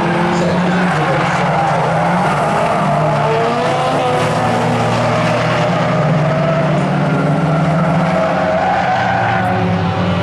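Several small hatchback race cars' engines running hard as they race round a short oval, their pitches wavering up and down as the drivers lift and accelerate through the bend.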